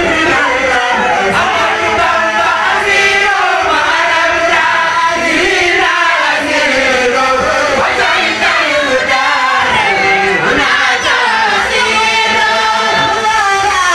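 A choir of voices singing a devotional chant together. A lead singer's voice carries through a headset microphone over a chorus of women's voices.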